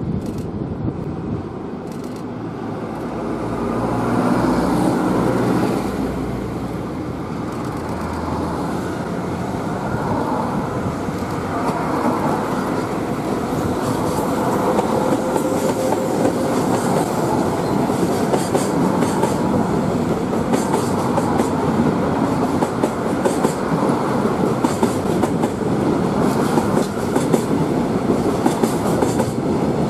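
EF65 electric locomotive hauling a container freight train past at low speed. The locomotive's hum swells as it passes, then the wagons roll on steadily, their wheels clicking quickly over the rail joints.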